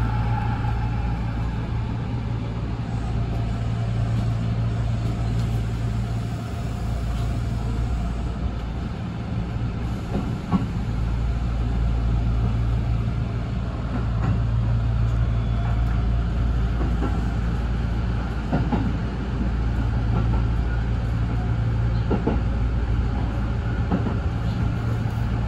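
Kintetsu express train running, heard from inside the car: a steady low rumble of wheels on rail and running gear, with a few faint clicks.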